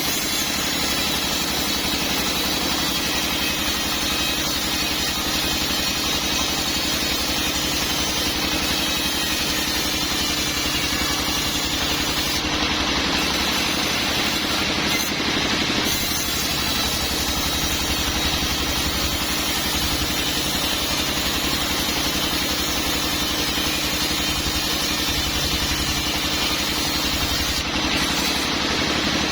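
Sawmill machinery running with a steady, unbroken drone.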